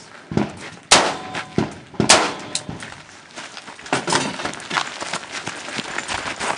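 Two gunshots about a second apart, the second followed by a short metallic ring from a hit steel target. After that come scuffing, shuffling steps and light clicks of moving gear.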